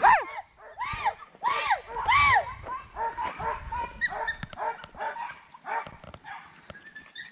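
Hunting dogs yelping in a string of high, arching cries on a flushed rabbit's trail, about two a second at first, then fainter and quicker after a couple of seconds.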